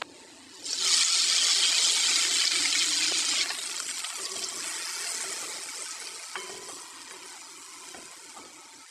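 Loud sizzling hiss of food going into hot oil in a karahi. It starts suddenly about a second in, eases after a few seconds and then fades gradually as the pan settles. A short clink comes about six seconds in.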